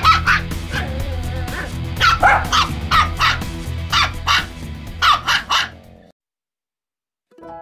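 Shiba Inu puppy yapping in a quick series of sharp, high-pitched barks over background music. The sound cuts off about six seconds in, and a piano comes in near the end.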